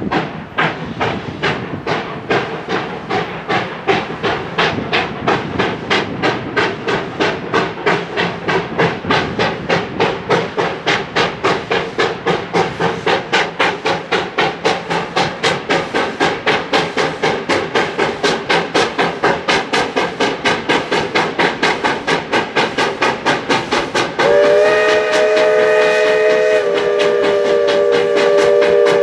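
Georgetown Loop narrow-gauge 2-8-0 steam locomotive No. 40 working past with sharp, regular exhaust chuffs, about three a second. About 24 seconds in, its multi-note steam whistle sounds one long blast over the chuffing, dropping slightly in pitch partway through.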